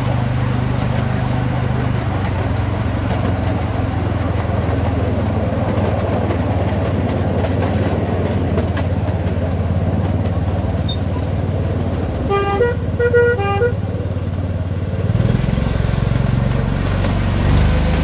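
Engine of a miniature-railway Hymek-outline locomotive running steadily while hauling the train. A two-tone horn gives a quick series of short toots about two-thirds of the way through. The engine note rises near the end.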